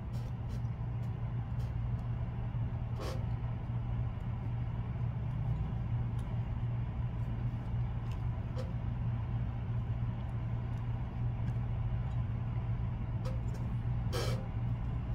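A steady low background hum with a few faint, brief ticks over it.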